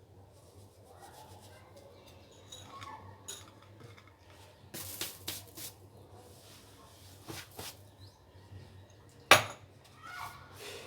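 Kitchen utensils and dishes clinking and knocking as salt-stuffed lemons are handled. There are scattered knocks about five seconds in and again around seven seconds, then one sharp, loud knock near the end.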